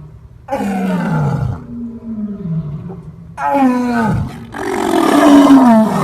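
Lion roaring: four deep calls in a row, each sliding down in pitch. The second is softer, and the last is the longest and loudest.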